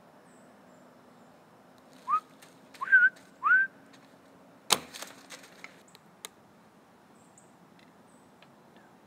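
Four short, rising whistles, then about a second later a single sharp snap, which fits the shot of a compound bow. A few faint clicks follow.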